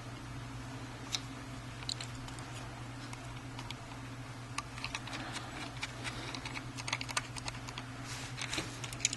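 Light clicks and taps of small hard parts being handled during laptop repair work: a few isolated ones at first, coming thicker in the second half, over a steady low hum.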